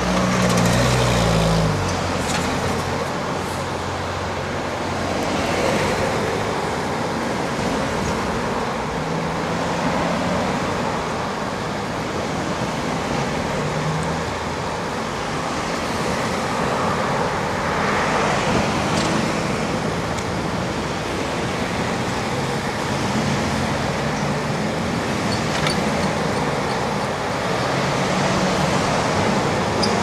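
Steady road traffic, cars and trucks driving past close by. A heavier engine hum swells near the start and again around ten and twenty-five seconds in as larger vehicles go by.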